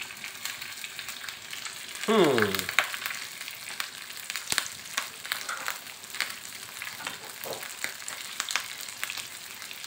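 Cooked rice, onions and salted fish sizzling in hot oil in a frying pan, a steady hiss with scattered small pops and crackles. A short vocal sound comes about two seconds in.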